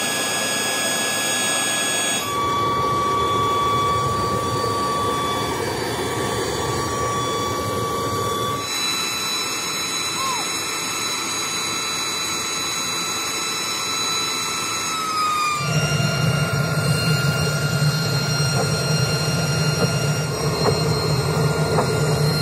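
The burner of a rotary cast-iron melting furnace firing, a steady rushing noise with a high whine on top, while the scrap charge is heated. The sound changes abruptly three times, about 2, 9 and 16 seconds in, and is heavier in the low end after the last change.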